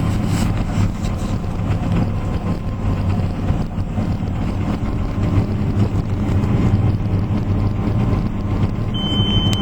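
Wheat-harvesting machinery running steadily, its engine a continuous low drone with mechanical noise above it. A steady high-pitched tone starts near the end.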